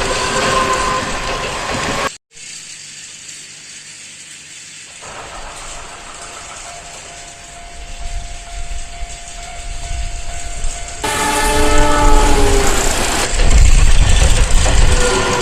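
Dubbed-in train sound effects. A train horn sounds and cuts off abruptly about two seconds in. Quieter running noise with a thin steady tone follows, then the horn sounds again about eleven seconds in with its notes dipping slightly, and a loud low rumble comes near the end.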